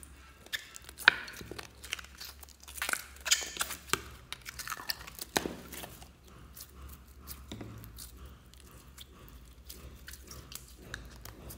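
Clear glitter slime squeezed from a plastic tube and worked into a bowl of foam-bead slime by hand: sticky crackling and popping. The crackles are densest in the first half and softer after it.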